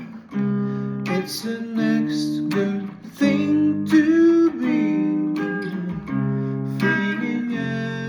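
Acoustic guitar playing a run of chords, strummed and plucked, the chord changing about every second.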